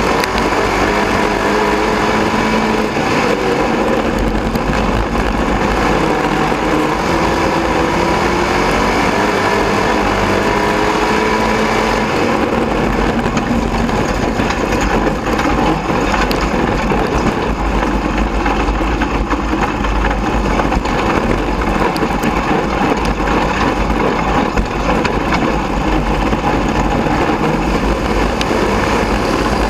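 In-car sound of a dirt-track race car's engine easing off under caution, its pitch falling over the first dozen seconds, then running at low speed, loud and rough with rattle and rumble around the camera.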